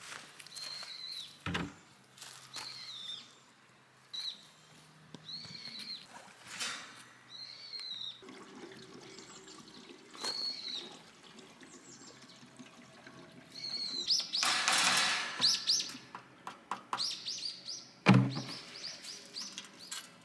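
Kerosene being poured from a plastic fuel can into a Paseco 26 kerosene heater's tank, with a louder stretch of pouring about two-thirds of the way in, then a single thunk. A bird calls in short, repeated chirps through the first half.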